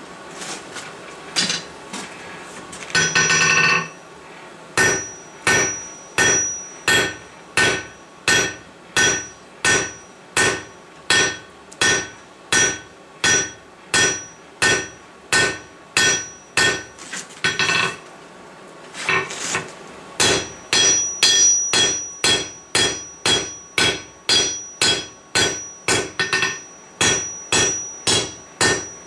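Blacksmith's hammer striking hot mild steel bar on an anvil, drawing it out: a steady rhythm of blows, each with a bright ring from the anvil. The blows stop briefly about two thirds of the way through, then resume a little faster.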